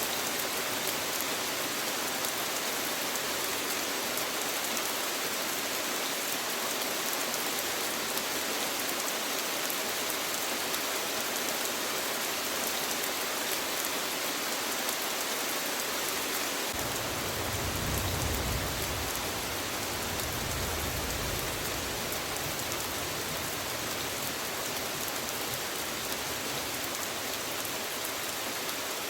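Steady rain hiss. About two-thirds of the way through, a low rumble comes in for a few seconds and then fades.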